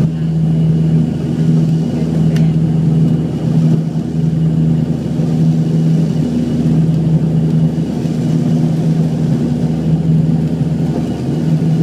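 ATR 42 twin-turboprop engines at takeoff power, heard from inside the cabin beside the wing during the takeoff roll. A loud, steady low propeller drone that wavers slowly, over a deep rumble.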